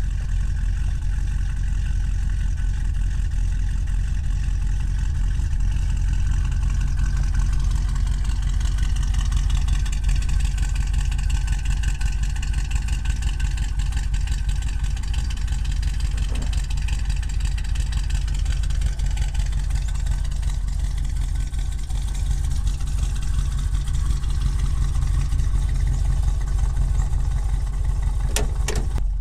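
A 1978 Ford Econoline 150 camper van's engine running steadily at idle. A couple of sharp clicks come near the end.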